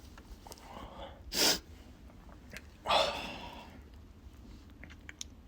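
A man's stifled sneeze: one short, sharp burst held back through the nose about a second and a half in, followed by a breath at about three seconds.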